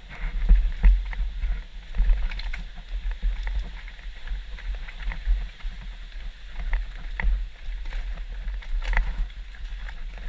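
Downhill mountain bike rattling over a rough trail, with irregular knocks and clatter from the bike over bumps. Wind rumbles steadily on the microphone.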